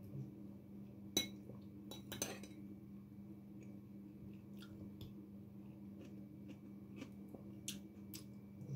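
Cutlery clinking against dishes a few times, the sharpest clinks about a second and two seconds in and a couple more near the end, over a steady low hum.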